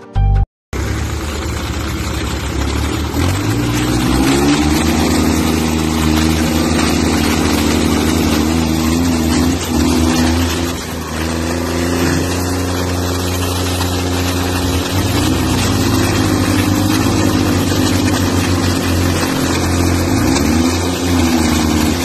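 Two diesel tractor engines running hard under heavy load while pulling against each other in a tug of war, revving up about three seconds in and then holding high with small dips in pitch.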